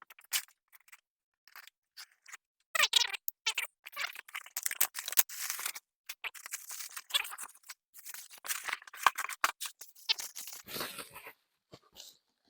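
A shipping box being opened by hand: tape cut and torn, then the cardboard and packing rustling and crinkling in uneven bursts, starting about three seconds in.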